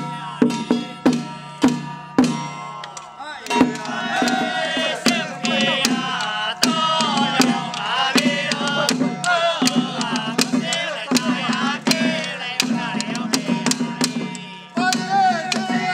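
Music with a steady beat of sharp percussion strikes; a wavering melodic line joins about three and a half seconds in.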